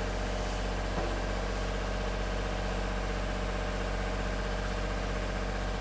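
Diesel engine of a Miller Big Blue 400D engine-driven welder running at a steady speed, with a small click about a second in.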